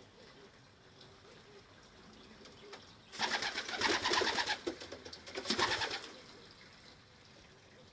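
Young racing pigeons flapping their wings in the loft: two bursts of rapid wing flutter, the first about three seconds in and lasting over a second, the second shorter, about two seconds later.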